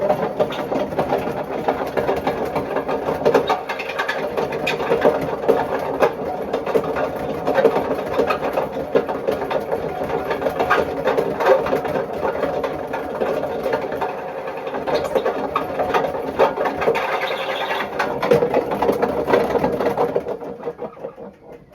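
Bush WMDF612 washing machine drum turning with a loud, rough, rattling noise from badly worn drum bearings, dying away near the end as the drum slows.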